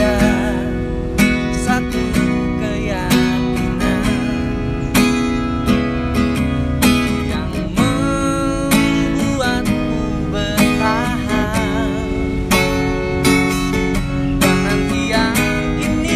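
A man singing with vibrato, accompanying himself on a strummed acoustic guitar.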